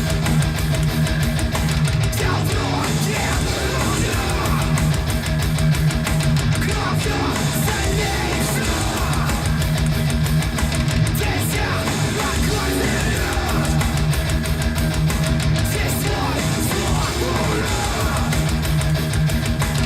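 Heavy rock music with electric guitar, played through S-90E loudspeakers refitted with Alphard mid-range and TW-318 tweeter drivers.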